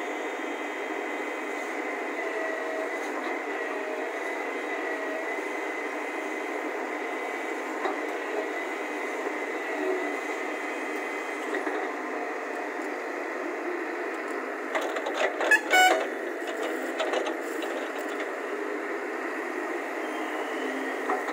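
JCB JS140 tracked excavator's diesel engine and hydraulics working steadily while digging, with a whine that wavers in pitch as the load changes; it sounds thin, without its low rumble. A short burst of loud clattering comes about fifteen seconds in.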